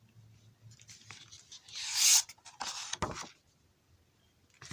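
A picture book's page being turned: a short papery swish about two seconds in, followed by a few soft crackles and knocks as the page is handled.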